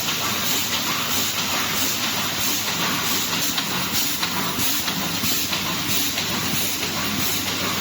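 Automatic wire mesh welding machine running: a steady hissing clatter with a faint, regular pulsing beat.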